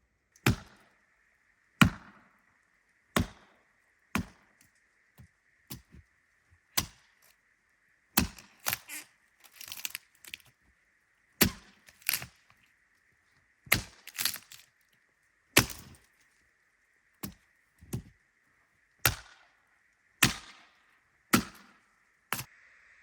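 Wood being chopped: a string of sharp chopping blows, roughly one a second, with a short burst of crackling about halfway through.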